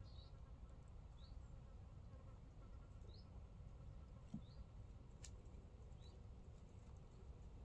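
Near silence with a low background rumble, and faint short high chirps every second or two. A single sharp click about five seconds in.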